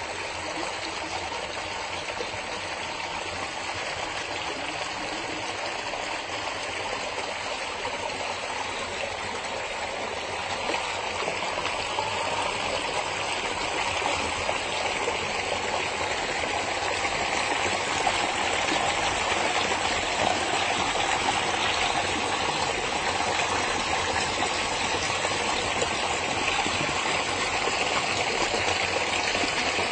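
Forest stream flowing and splashing steadily over rocks, growing somewhat louder about ten seconds in.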